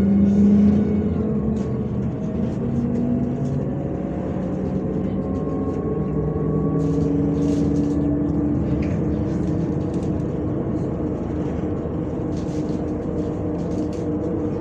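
A MAZ-105 city bus's diesel engine and drivetrain running under way, heard on board. The engine note falls slightly in pitch over the first couple of seconds, then holds steadier and stronger from about the middle. Short light rattles come through here and there.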